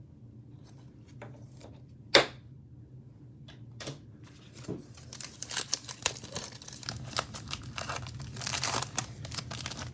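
Foil wrapper of a Panini Illusions football card pack being torn open and crinkled, the crackling growing dense from about halfway through. A single sharp tap comes about two seconds in.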